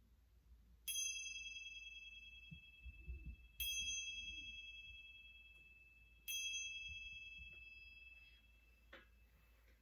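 A small high-pitched chime struck three times, about two and a half seconds apart. Each strike rings clear and fades slowly, signalling the end of the final resting pose.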